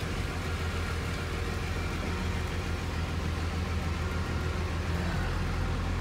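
Truck engine heard from inside the cab, running steadily at low speed as the truck rolls slowly along, a constant low hum.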